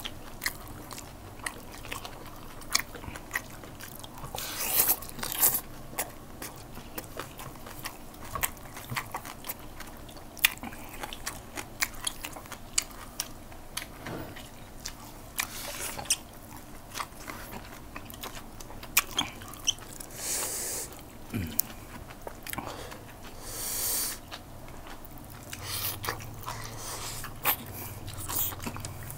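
Close-miked mukbang eating sounds: chewing and wet lip-smacking clicks as chicken adobo and rice are eaten by hand, with a few longer sucking slurps of meat off the fingers and bones.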